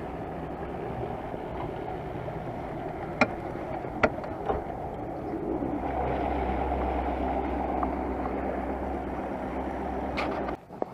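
Boat outboard motors idling, a steady low engine hum that grows louder about halfway through, with two sharp clicks about three and four seconds in; the hum cuts off suddenly near the end.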